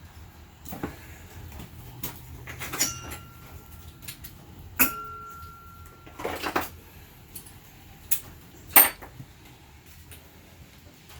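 Metal tools and loose bolts clinking and clanking against the engine and bench while the windage tray is unbolted from the bottom of an LQ4 V8. It is a string of separate sharp knocks, one ringing briefly about five seconds in, with the loudest strike near the end.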